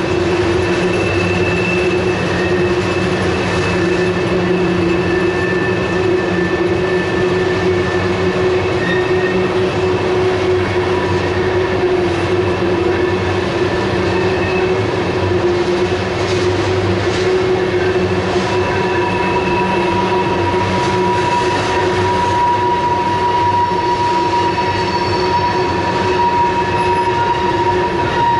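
Tank cars of a long freight train rolling past: a steady rumble and clatter of wheels on rail. High, held squealing tones from the wheels come and go over it, with a new one joining about two-thirds of the way through.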